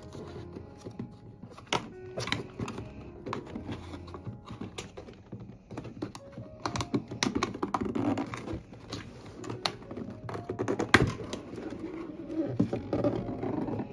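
Hands handling a corrugated cardboard laptop box: a run of taps, scrapes and rustles as fingers slide along and pry at the lid, with thunks as the box is tilted and set down, one sharper knock late on.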